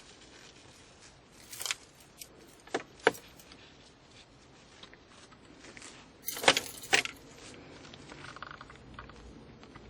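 A heavy bunch of keys on a key ring jangling and clinking in several short bursts, loudest twice about six and a half to seven seconds in.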